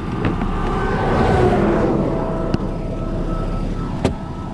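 Car running with a steady low rumble and a rushing swell that rises and fades about a second in, with a couple of short sharp clicks later on.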